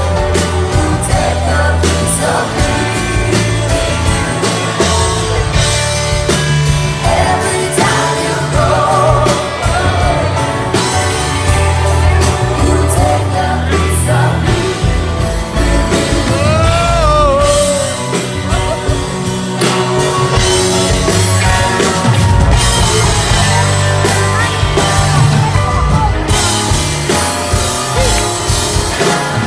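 Live pop-rock band playing loudly, with drum kit, bass and electric guitar, and singing over the top.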